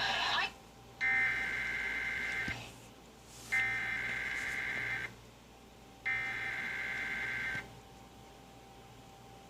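Emergency Alert System SAME header: three bursts of harsh digital data tones, each about a second and a half long with a second's gap between them, opening a required weekly test.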